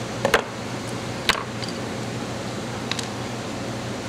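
Small metal hand pliers set down and knocked on a wooden tabletop while a fishing wire rig is handled: a few sharp clicks, the loudest in the first second and a half. A steady low hum runs underneath.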